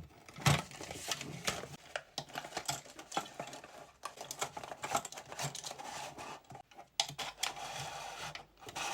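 Items and packaging handled close to the microphone: a rapid mix of taps, clicks and rustling, with the loudest knock about half a second in and a longer stretch of rustling near the end.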